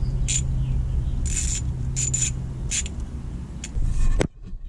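Hand tools working on an AN fuel-line fitting as it is tightened: a handful of short, sharp scraping clicks spread over a few seconds, over a steady low hum. The sound cuts off abruptly near the end.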